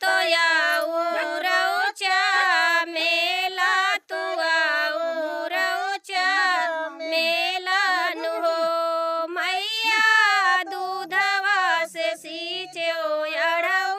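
A woman singing a Bhojpuri devotional song (devi geet) to the mother goddess in a high solo voice. Her phrases are separated by short breaths, with long held, ornamented notes in the middle.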